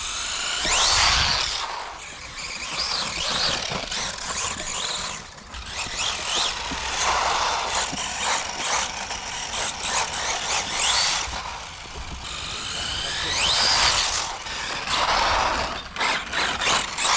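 Tamiya Striker RC buggy with a 7700 kV brushless motor being driven hard: a high-pitched motor whine that rises with each burst of throttle, over a rough hiss, with a few short knocks near the end.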